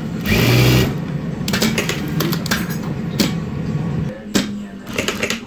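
Industrial lockstitch sewing machine running in a short burst of stitching about half a second in, then a run of sharp clicks and knocks as the fabric is handled at the machine, over a steady low hum.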